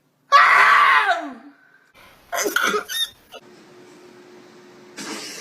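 A person sneezing loudly once, a noisy blast with a voiced 'choo' falling in pitch. About two seconds in comes a shorter burst of quick vocal sounds.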